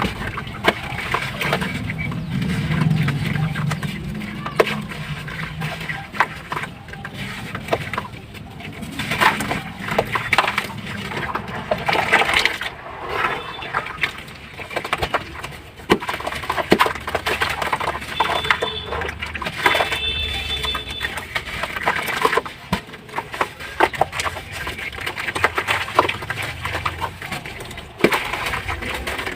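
Sand-cement slabs crumbling and crunching in water, a steady run of irregular small cracks and snaps.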